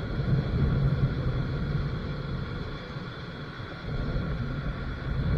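Wind buffeting the microphone: an uneven low rumble that swells and fades.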